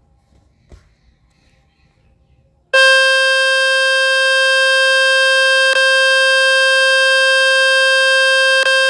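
Samsung Galaxy A23's loudspeaker playing a speaker-cleaning tone from the Fix My Speaker website: a quite loud, steady, buzzy tone that starts about three seconds in and holds for about six seconds, with two brief clicks in it. The tone is meant to shake dust and water out of the speaker grille. A faint tap comes about a second before it starts.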